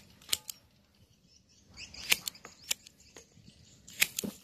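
Hand pruning shears snipping twigs off a yellow apricot (mai vàng) tree: a series of sharp, separate clicks, a couple near the start, one or two in the middle and a quick cluster near the end.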